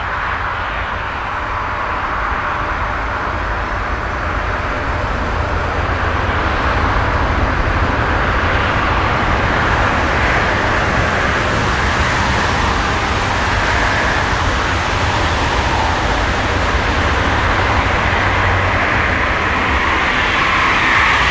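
Airbus A320neo's Pratt & Whitney geared turbofan engines running at low power as the airliner rolls along the taxiway: a steady jet hiss with a low rumble underneath, growing slightly louder over the first several seconds.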